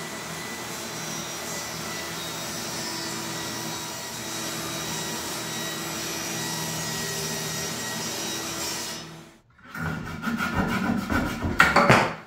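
Benchtop table saw running as it cuts notches into the end of a pine board, a steady whirring that cuts off about nine seconds in. Then irregular wooden knocks and clatter from the board and offcuts being handled, loudest near the end.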